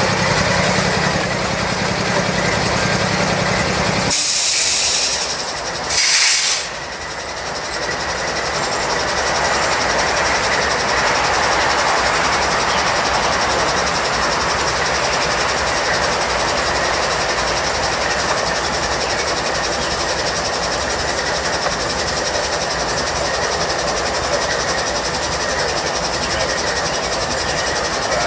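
Norfolk Southern GE diesel freight locomotive running while the train stands, a steady low rumble, with two short, loud bursts of air hissing about four and six seconds in.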